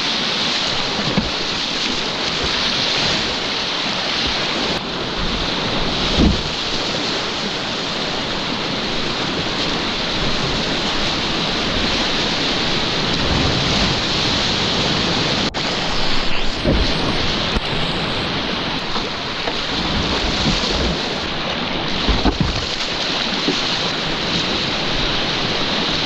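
Whitewater rapids of the Potomac River rushing and splashing around a kayak, heard close up from a camera at water level, with wind buffeting the microphone. A few dull thumps, about 6, 16 and 22 seconds in, stand out from the steady rush.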